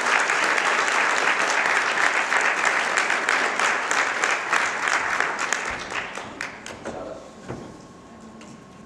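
A large audience applauding: dense, steady clapping that thins into scattered claps and dies away about seven seconds in.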